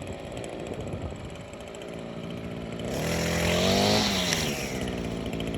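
Echo SRM-225 string trimmer's small two-stroke engine running at idle, revved up once about three seconds in and dropping back to idle about a second later.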